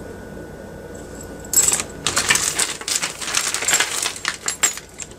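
A hand rummaging in a clear plastic zip-top bag full of costume jewelry: the bag crinkles and metal pieces and chains clink together. This starts about a second and a half in and lasts about three seconds.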